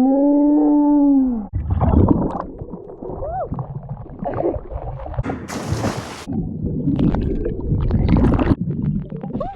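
A woman's long yell, rising then falling in pitch, as she jumps, cut off about a second and a half in as she hits the water. Then water splashing and gurgling around her as she swims in the lake, with short hissing splashes.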